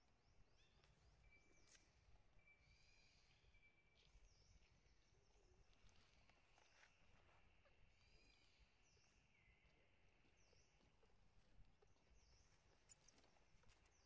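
Near silence outdoors, with faint, repeated high chirping bird calls in the background. A thin, steady high tone comes in partway through and fades a few seconds later.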